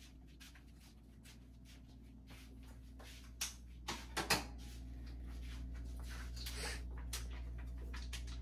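A few short, sharp clicks and knocks between about three and a half and four and a half seconds in, over a steady low hum.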